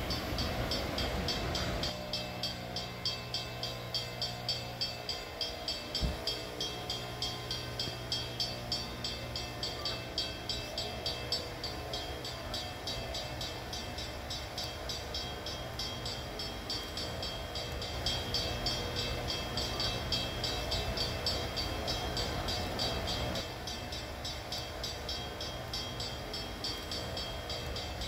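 Steam train running along the track, with a regular beat of about two strokes a second that evens out into a steadier sound about halfway through.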